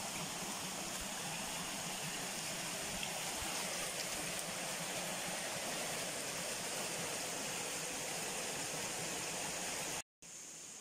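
Steady rushing of a fast-flowing stream that cuts off abruptly near the end.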